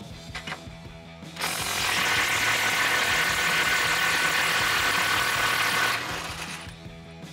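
Cordless electric ratchet running, spinning a nut off a bumper mounting stud. It starts about a second and a half in, runs steadily for about four and a half seconds, then winds down.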